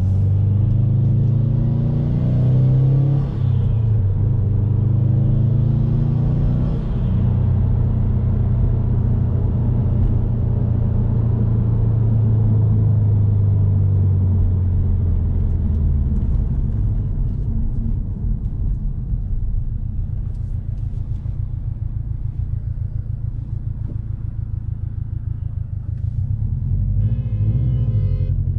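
Subaru WRX STI's turbocharged flat-four, fitted with an MA Performance Stage 1+ intake and tune, under way with very noticeable intake noise. It rises through the revs twice in the first several seconds with a break between, holds steady, then eases off to a lower, uneven note. A short tone sounds near the end.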